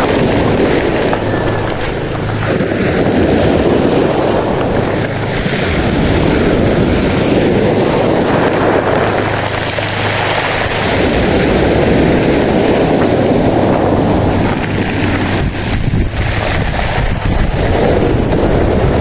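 Wind buffeting the microphone over the rush of sea surf, in loud, uneven gusts.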